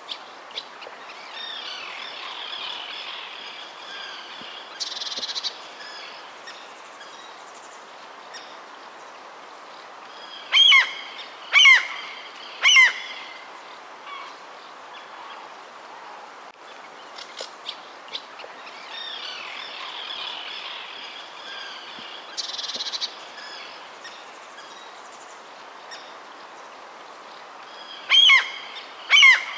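Birds calling over a steady background hiss: a stretch of high twittering, then three loud falling calls about a second apart. The same sequence comes round again about eighteen seconds later.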